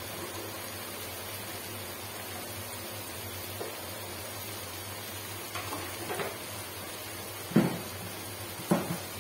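Sliced luffa gourd (tori) cooking in a nonstick wok with a steady low hiss. In the last few seconds come a handful of kitchen knocks against cookware, the two sharpest about a second apart.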